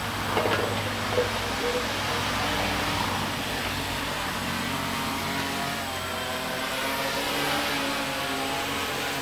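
Homemade quadcopter spraying drone hovering, its four propellers and motors droning steadily as several close tones that waver slightly in pitch while it holds position. A few short louder blips come in the first two seconds.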